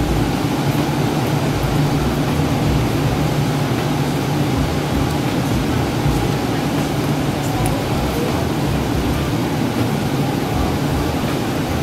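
Steady hum and rumble of an electric commuter train at a station, even throughout with no distinct events.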